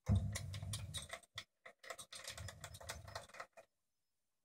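Clicking and rattling handling noise on a metal lathe as the carriage is moved along the bed and the swarf-covered chip board is shifted, starting with a heavy knock. Two runs of rattling with a short break between them, ending with one last click.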